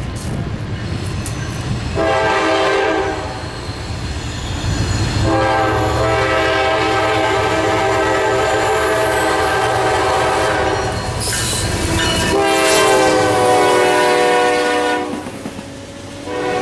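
A GE Dash 9-40CW diesel locomotive's air horn sounds for a grade crossing in four blasts: a short one about two seconds in, a long one of several seconds, another of two or three seconds, and a fourth starting near the end. Under the horn is the low rumble of the approaching train, and then its cars rolling past on the rails.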